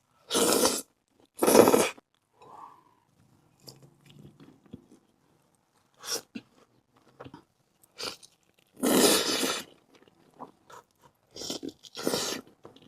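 Crispy fried chicken tenders crunching as they are bitten and chewed close to the microphone: two loud crunches in the first two seconds, another burst about nine seconds in and more near the end, with quieter chewing between.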